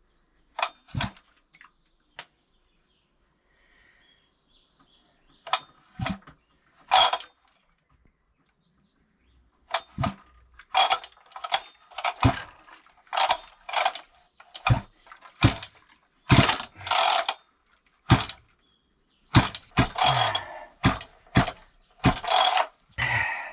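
Husqvarna 562XPG two-stroke chainsaw's recoil starter being pulled by hand to check compression, the engine turning over without firing. A few separate pulls come first, then a long run of quick pulls about two a second in the second half. The compression feels good: the saw has just had a new cylinder and piston fitted under warranty.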